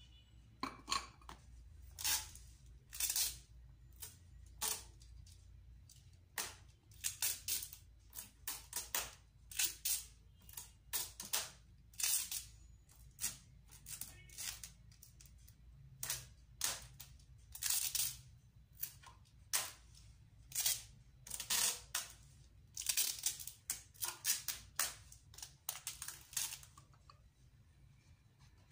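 Paper and plastic rustling and crinkling in irregular short bursts as things are handled and packed into a paper bag.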